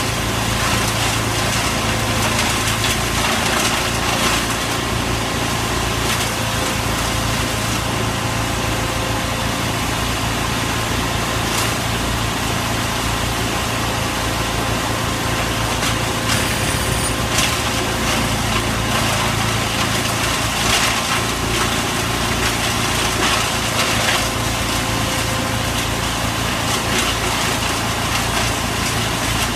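Wood chipper running steadily at speed, its engine drone constant, with a few short cracks and crunches scattered through as wood is chipped.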